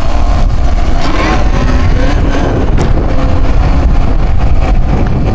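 Steady loud rumble of wind and motion on the microphone while riding a Talaria electric dirt bike.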